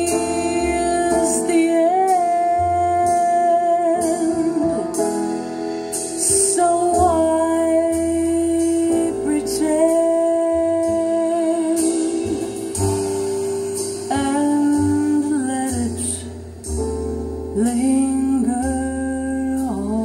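Recorded music with a woman singing long held notes over guitar and piano, played on a home stereo through a pair of tall flat-panel speakers.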